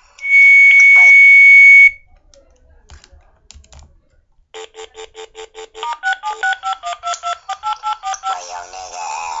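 A loud, steady high beep lasting under two seconds, then, after a few soft taps, a rapid run of touch-tone (DTMF) keypad beeps as a phone number is dialed: several quick beeps on one pitch, then a string of beeps that change pitch from key to key.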